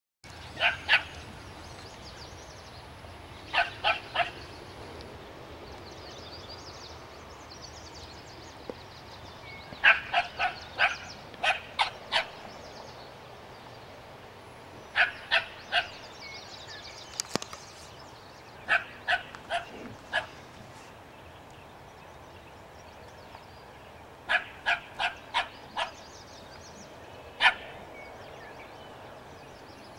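A small dog barking in short bursts of two to seven quick, sharp barks, several seconds apart, while it confronts a skunk.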